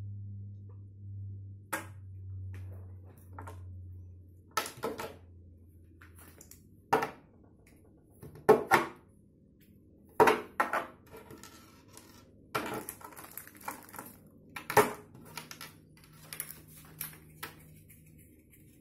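Irregular knocks and clinks of small metal pieces and a foil-wrapped weight being handled and set down on a wooden tabletop, about a dozen sharp strikes. A low hum is heard under the first six seconds, then fades.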